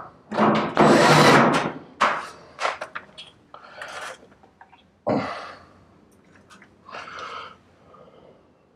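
Knocks, scrapes and rubbing as a dryer's sheet-metal back panel and hand tools are handled and fitted, in separate irregular bursts: the longest comes about half a second in, with shorter knocks around two, four, five and seven seconds in.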